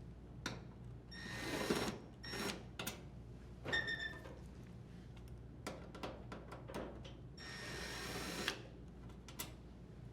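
Cordless drill driver spinning briefly several times as it backs out the screws holding a dryer's control panel, with clicks and taps of the screws, bit and panel between runs.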